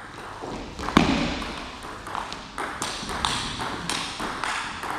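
Table tennis rally: the ball clicking sharply off the bats and the table in a quick alternating rhythm, a few hits a second, with one loud hit about a second in.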